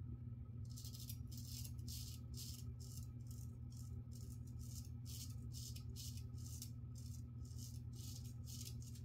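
Straight razor blade scraping through lathered stubble on the chin in quick short strokes, about two to three a second, starting about half a second in, over a faint steady low hum.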